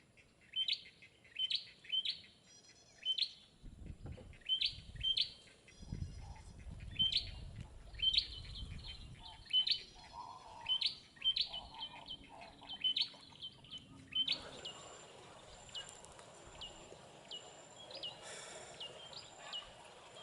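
A small wetland bird repeating a short, sharp high chip call, about one or two a second. About two-thirds of the way through, the background turns noisier and similar calls continue more sparsely, with a low rumble under the calls for a few seconds early on.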